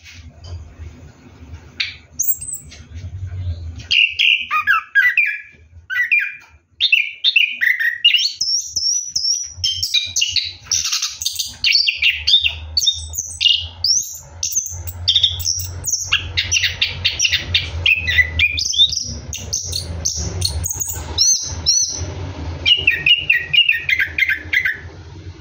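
Orange-headed thrush singing a long, rapid run of varied whistled and chattering phrases with hardly a break: the continuous 'rolling' song prized by bird keepers. A steady low hum runs underneath.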